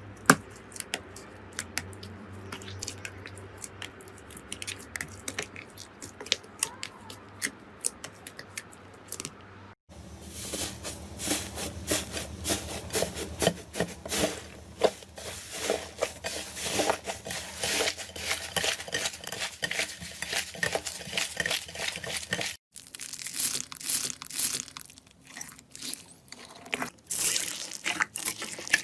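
Slime being squeezed, poked and stretched by hand, giving rapid sticky clicks and crackles. The crackling grows denser and louder about a third of the way in, after a brief break.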